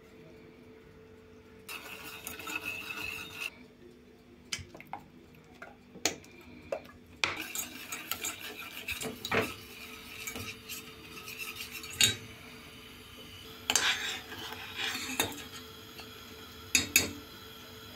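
A small metal whisk stirring milk, cocoa and flour in a stainless steel pot, scraping round the pot in several spells with sharp metal-on-metal clinks against the rim and sides.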